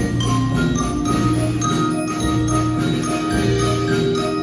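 Percussion ensemble playing live: quick, bright mallet-keyboard notes over drums.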